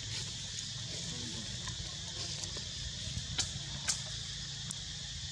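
Forest ambience: a steady high-pitched hiss with a low hum underneath, and a few sharp clicks about three and a half, four and nearly five seconds in.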